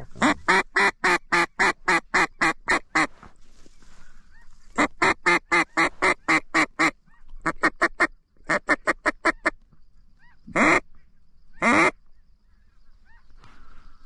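Duck call blown in quick strings of quacks, about five a second, with short pauses between strings, then two long notes that rise in pitch near the end, calling to incoming birds.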